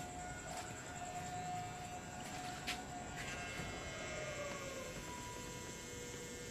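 Electric diesel fuel pump whining steadily with the ignition on, priming the system through the newly fitted fuel filter. Its pitch slides lower in the second half and then holds, and there is a single click just under three seconds in.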